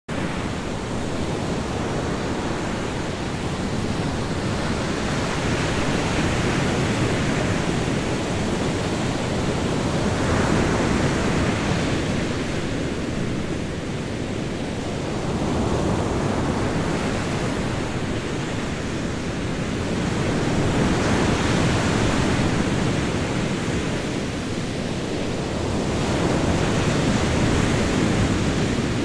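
Sea waves washing, heard as a steady rush that swells and ebbs every five or six seconds.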